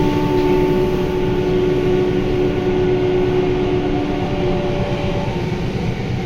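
Inside a Sendai Subway 1000N-series train car running between stations: a steady low rumble of wheels and running gear, with several steady whining tones from the IGBT-VVVF traction equipment that fade out about five seconds in.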